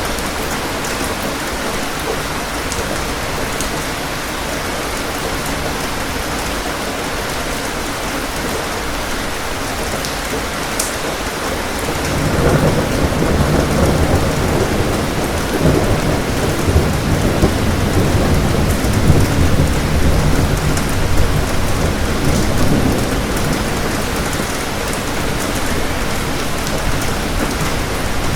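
Steady rain falling, with a long roll of thunder that builds about twelve seconds in and rumbles for some ten seconds before fading back under the rain.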